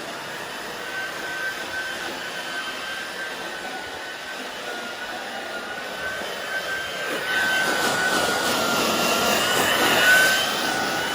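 Hair dryer running: a steady rush of air with a high motor whine, growing louder about seven seconds in.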